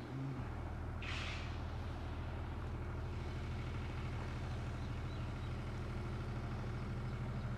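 A diesel engine running steadily at a constant speed, with a short burst of air hiss about a second in.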